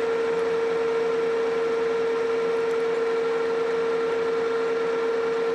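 Metal lathe running with a steady whine, turning down a steel bar to take about 100 thousandths off its diameter.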